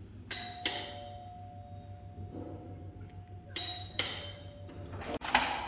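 Doorbell chime rung twice, each ring a two-note ding-dong whose tones ring on and fade. A few sharp clicks come near the end.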